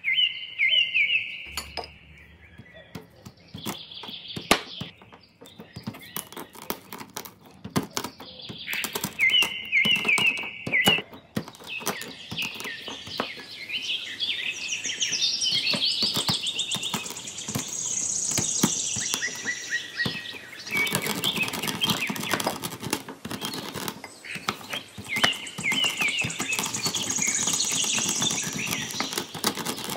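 Marble rolling pin crushing mixed nuts on a wooden cutting board: sharp cracks and knocks as the whole nuts break, turning into a denser, steady crunching and grinding about two-thirds of the way in as the pieces are rolled finer. Birds chirp in short repeated trills in the background.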